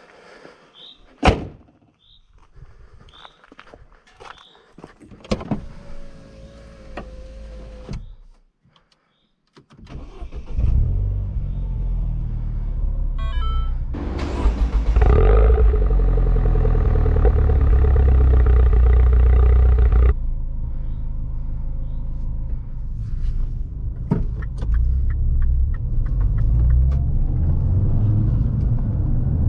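A car bonnet slammed shut about a second in. From about ten seconds in, the 2007 Mini Cooper S's tuned 1.6-litre turbocharged four-cylinder runs loud through a Remus exhaust at the tailpipes, revs rising briefly around the middle. In the last third it is heard from inside the cabin while driving.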